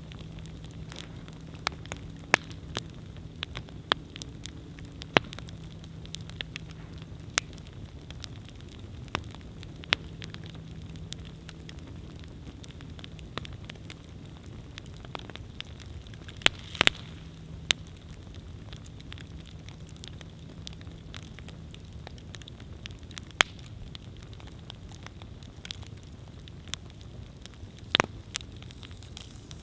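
Wood campfire burning: a steady low rush of flames with sharp, irregular crackles and pops, a few louder snaps scattered through.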